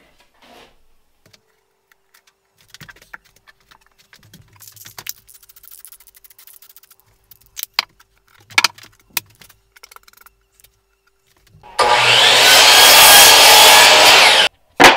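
Electric miter saw running and cutting through a wooden board for about three seconds near the end. It is loud and cuts off abruptly.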